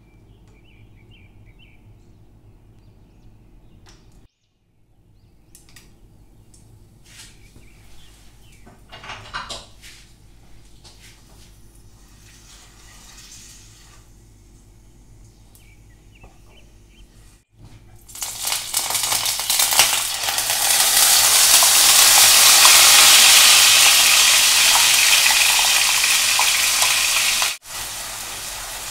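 A blended paste hitting hot oil in a nonstick frying pan and sizzling loudly while a spatula stirs it. The sizzle starts about two-thirds of the way in and swells to a steady hiss. Before that there is only faint sizzling of a dried red chilli frying in a little oil, with light taps of the spatula on the pan.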